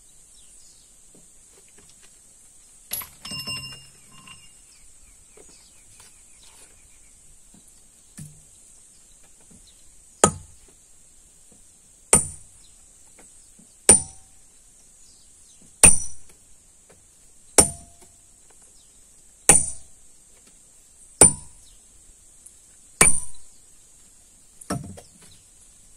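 Sledgehammer striking steel splitting wedges driven into the stone to split it: nine ringing metal-on-metal blows about two seconds apart, starting about ten seconds in. A short cluster of metallic clinks about three seconds in, over a steady high insect buzz throughout.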